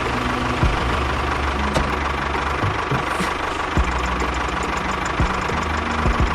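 A small motor running steadily, with a steady whine and occasional short knocks.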